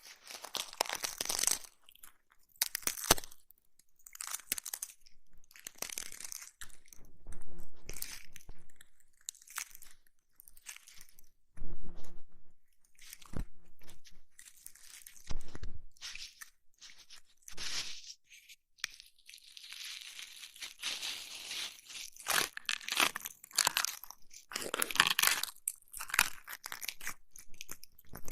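ASMR ear massage on a close-up microphone: irregular rubbing and crinkly scratching strokes, each lasting about a second, with a few dull thumps in the middle.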